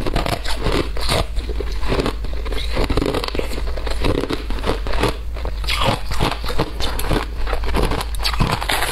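Shaved ice and small ice chunks crunched between the teeth, close up: a dense, irregular run of crisp cracks and crackles without pause.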